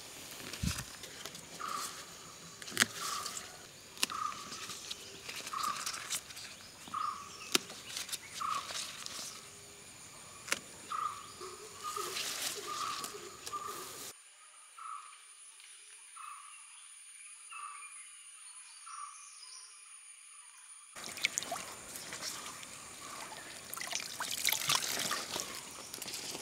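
Outdoor ambience: a bird repeats a short call about once a second, over rustling and crackling as wild colocasia leaves are handled in a basket. The calls stop about 20 seconds in, and a shallow stream trickling takes over near the end.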